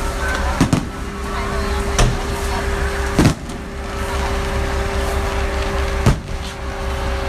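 Fireworks exploding overhead: sharp bangs, two close together near the start, then single ones about two, three and six seconds in. Under them runs a steady hum and rumbling background.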